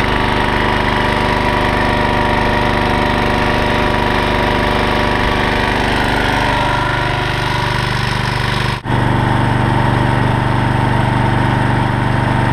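Homemade outboard kicker motor built from a 12.5 horsepower vertical-shaft gas engine running steadily under way, pushing the pontoon boat. The hum drops out for an instant about nine seconds in, then carries on.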